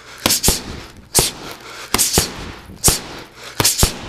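Boxing punches smacking against the trainer's red gloves during a combination drill: about eight sharp hits, some in quick pairs a quarter-second apart, like a 1-2 followed by a single 2 after a slip.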